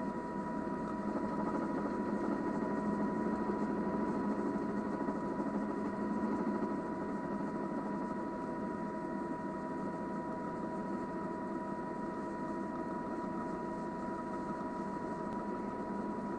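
Steady aircraft engine drone with a constant high whine running through it, easing slightly about halfway.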